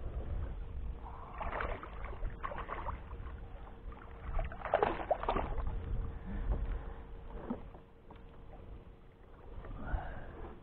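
A fish being reeled in and landed from a kayak: bursts of splashing and handling noise, the loudest about one and a half and five seconds in, over a low rumble of movement rubbing on a body-worn microphone.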